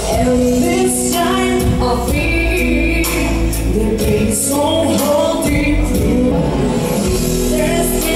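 A woman singing into a microphone over amplified backing music, holding long notes.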